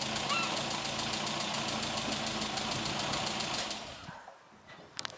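Austin 1300's four-cylinder A-series engine running steadily with a fast, regular ticking, then fading away about four seconds in, followed by a couple of faint clicks.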